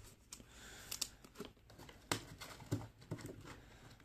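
Faint rustling and a few light clicks of a trading card being handled and slid into a clear plastic card sleeve.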